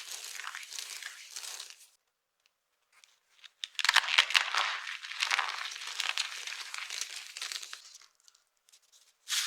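Dry soap being crushed and crumbled, a dense crackling crunch. It comes in two spells: a softer one at the start, then after a short silence a louder one lasting about four seconds, and a brief burst again at the very end.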